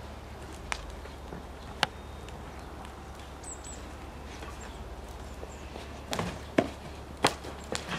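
Scattered sharp knocks and pops over a steady low hum, sparse at first and then a louder cluster of knocks in the second half, with a brief high chirp around the middle.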